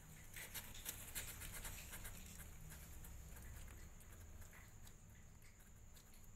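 Faint scratching and pattering of young kittens' claws on a cardboard box floor as they crawl and clamber over each other, busiest in the first couple of seconds, over a low steady hum.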